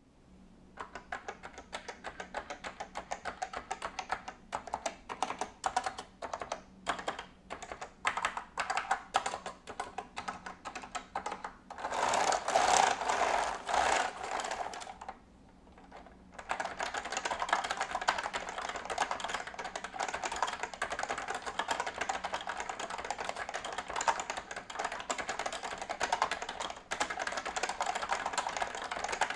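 Typing on an Omron F300-K keyboard with Fujitsu leaf spring 3rd generation switches. Separate keystrokes at first, then a louder, denser flurry about twelve seconds in and a short pause. Fast continuous typing follows.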